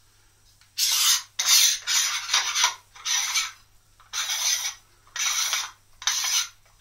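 Threaded lens cap of a William Optics Zenithstar 103 refractor being screwed by hand: a run of about eight short rasping scrapes, one every half second or so, as the thread turns.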